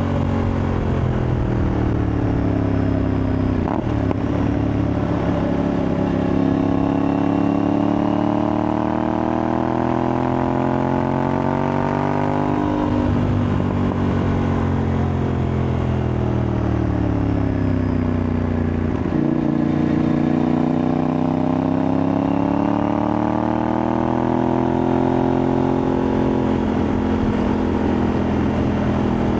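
Aprilia Tuareg 660's parallel-twin engine running under way through a replica Akrapovic exhaust. Its note falls and rises with the throttle. There is a break about 13 seconds in, and a step up in pitch about 19 seconds in.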